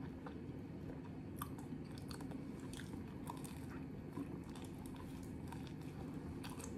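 Close-up crunching and chewing as a man bites into a toasted, waffle-pressed beef sandwich. Crisp crackles come about a second and a half in and continue, over a steady low hum.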